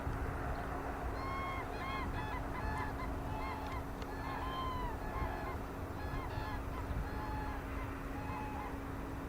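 Geese honking, a run of short repeated calls several per second, with a steady low hum underneath.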